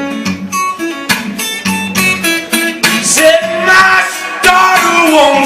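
Live acoustic guitar playing an instrumental country-blues passage between sung lines: a quick run of sharply plucked notes over a steady bass line.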